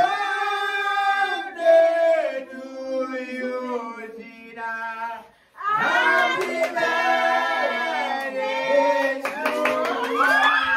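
A group of people singing a birthday song together with hand clapping, holding long notes, with a short break about five and a half seconds in and a few sharp clicks near the end.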